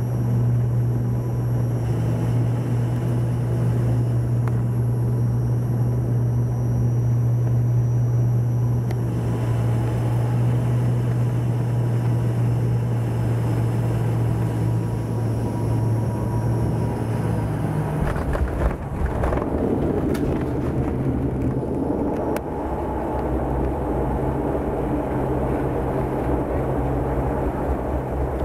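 Airliner cabin noise during landing: the engines drone with a steady low hum that stops about two-thirds of the way through. A bump at touchdown follows, then the rumble of the wheels rolling down the runway with the engine sound returning.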